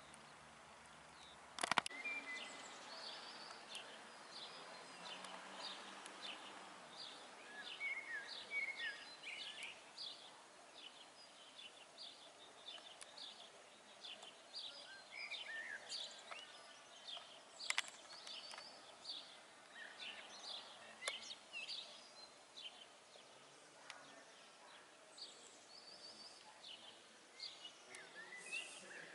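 Outdoor ambience with small birds chirping and singing faintly throughout, in many short calls. A sharp click sounds about two seconds in.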